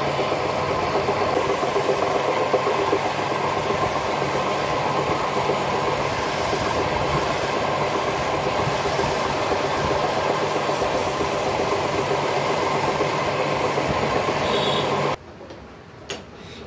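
Electric wood lathe running steadily, spinning a wooden spindle leg in its chuck while a hand tool cuts shavings from it. The sound stops suddenly about 15 seconds in, followed by a single click.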